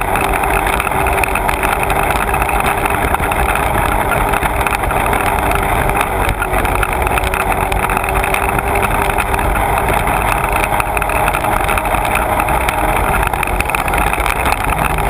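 Sea-Doo personal watercraft running at steady speed: a constant engine drone mixed with the rush of water and spray.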